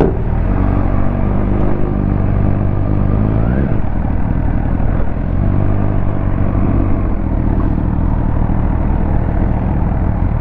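Ducati motorcycle engine pulling under acceleration, its pitch climbing and then dropping at a gear change about three and a half seconds in, climbing again and dropping at a second change about seven seconds in, over steady wind and road noise.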